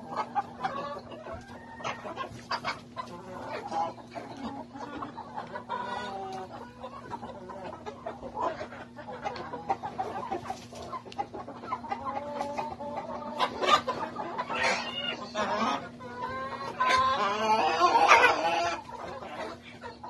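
A mixed flock of laying hens (Rhode Island Red, Barred Plymouth Rock and Black Australorp) clucking and calling all together, with many short overlapping clucks and one longer, louder call near the end. A faint steady hum runs underneath.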